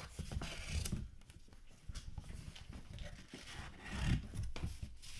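Cardboard outer box panels being unfolded and pulled apart by hand, scraping and rustling against the tissue paper and the box inside, in irregular bursts with a few dull bumps.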